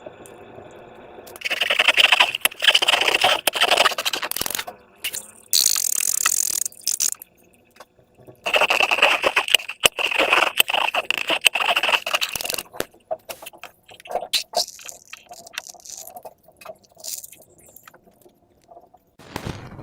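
Slime and a rubber balloon being handled: two longer stretches of noisy scraping and squishing, a short high hiss between them, then a scatter of small clicks and crackles.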